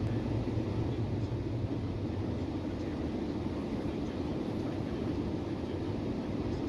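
Steady road and engine noise heard inside a moving car's cabin, a continuous low rumble with no sudden events.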